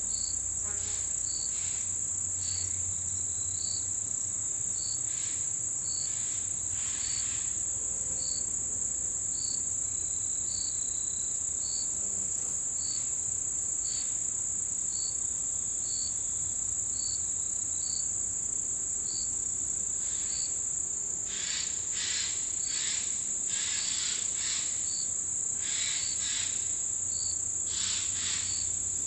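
Autumn insect chorus: a continuous high-pitched ringing trill, with a single short chirp repeating about once a second. About two-thirds of the way in, a run of short scratchy calls joins it for several seconds.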